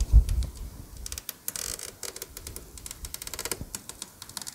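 Old rubber compartment-door seal being peeled off an RV door frame, its adhesive backing tearing loose in a rapid run of crackling, ripping clicks. A low rumble comes first, at the very start.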